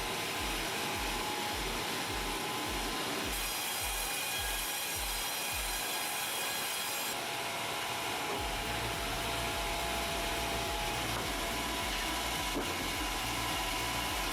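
Powered saw cutting through wood, with a regular low pulsing underneath that grows denser about two-thirds of the way through.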